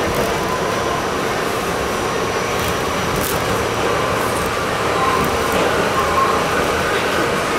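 R68 subway car running through a tunnel, heard from inside the car: a steady rumble of wheels on rail, with a faint whine that rises slightly near the end.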